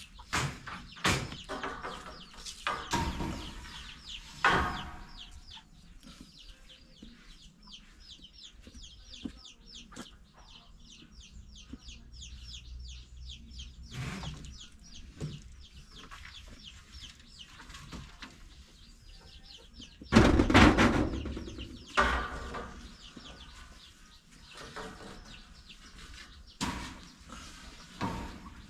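Chickens clucking, with a long run of fast, high chirping through the middle. Several loud sudden knocks and clatters break in, the loudest about two-thirds of the way through.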